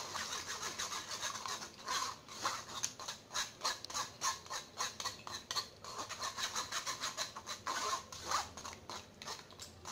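Steel spoon scraping and rubbing against a fine wire-mesh strainer in quick, irregular strokes, pressing wet blended puree through the mesh.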